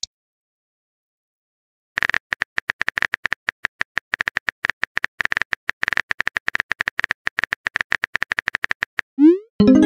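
Simulated phone-keyboard typing clicks: silence at first, then a fast, even run of short clicks for about seven seconds as a text message is typed. Near the end comes a quick rising swoosh and a pop, the chat app's message-sent sound.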